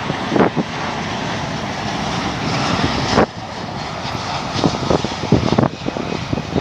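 Airliner engines during a landing, a steady loud rushing noise that drops off suddenly about three seconds in.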